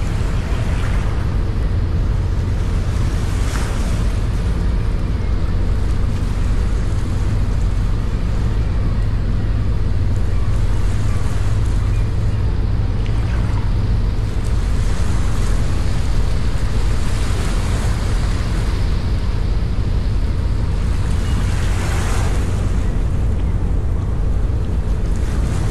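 Steady low rumble of a small boat under way, its engine running with water rushing along its hull and wind noise on the microphone; now and then a brief splash of spray.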